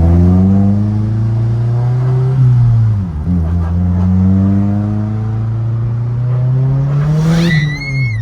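Turbocharged Mazdaspeed3 engine, fitted with a GTX3071R turbo and an external wastegate, accelerating through the gears: the engine note rises, drops at a gear change about three seconds in, and rises again. Near the end a high rising whistle from the turbo setup comes in as the revs fall away.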